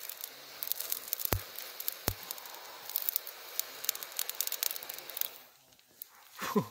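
Living tree bark burning under a lighter flame, crackling and sizzling with many small snaps and a couple of louder pops. It dies down about five seconds in.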